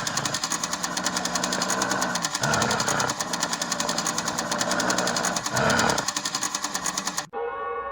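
Designed creature sound effect built from mixed stock sounds: a fast, machine-like clatter runs under pitched cries that rise and fall about every three seconds. Near the end it cuts off abruptly and a bell starts ringing.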